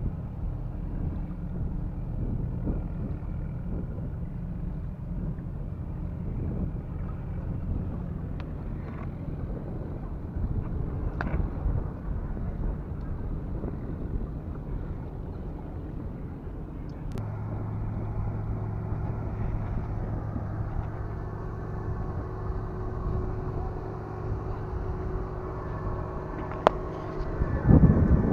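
A boat engine running steadily, a low hum that grows steadier and stronger about halfway through, with a few sharp clicks and a loud rush of low noise near the end.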